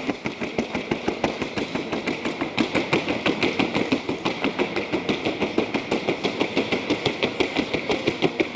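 A trocha-gaited mare's hooves beating on a wooden sounding board, a fast, even clatter of about six or seven hoofbeats a second. The steadiness of this beat on the board is what judges listen to when they rate how precise and constant the gait is.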